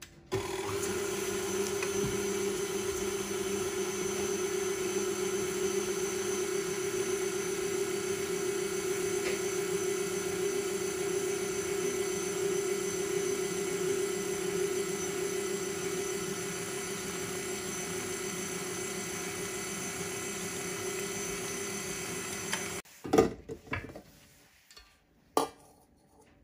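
KitchenAid stand mixer running with its wire whip beating a mixture in a stainless steel bowl: a steady motor hum that drops slightly in level about two-thirds through, then cuts off abruptly near the end, followed by a few sharp knocks.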